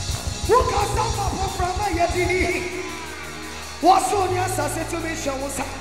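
A woman singing gospel worship into a microphone over a live band. Two loud phrases come in with a quick upward swoop, about half a second in and again near four seconds.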